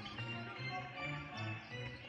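Background music with a bass line of short repeated notes.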